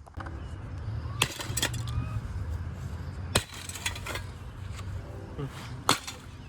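About five sharp metallic knocks and clinks at uneven intervals, from the metal parts of a computer power supply being struck and handled, over a steady low hum.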